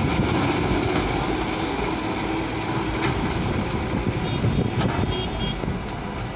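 Diesel engine of a JCB backhoe loader running steadily, with a few sharp ticks and clanks over it.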